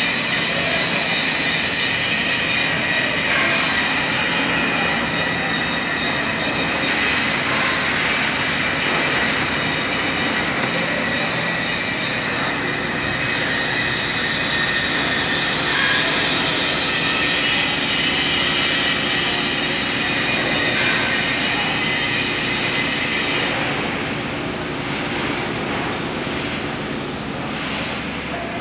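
JCB Loadall telehandler running under load while its boom lifts and extends, with a loud, steady high-pitched hiss over the engine. About 23 seconds in the hiss cuts off and the machine carries on more quietly.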